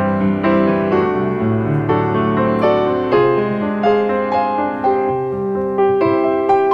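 Background music: a light keyboard melody with notes struck about twice a second.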